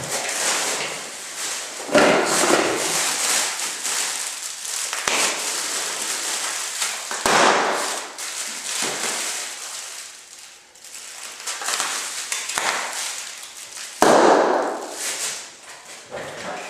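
Crackly rustling and crinkling of packaging being handled and torn open, in irregular surges with sharp jumps about 2, 7 and 14 seconds in.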